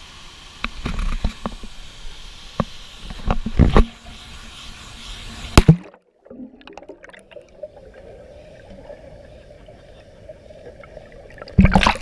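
Water splashing and knocks on a handheld action camera at a waterfall pool. About halfway the sound suddenly turns muffled and steady with faint ticks as the camera goes under the murky water, then a loud splash near the end as it breaks the surface.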